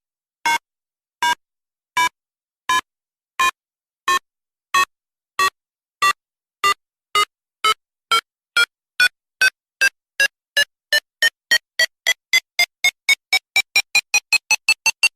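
A countdown timer's electronic beeps, short pitched tones that come faster and faster and rise in pitch, from about one a second to about five a second near the end.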